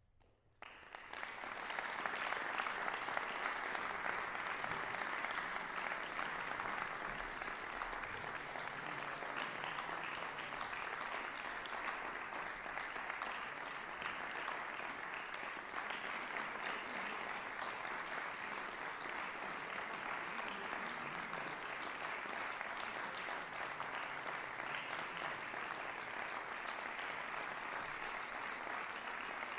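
Audience applauding. It breaks out from near silence about half a second in, swells within a second or so, then holds steady.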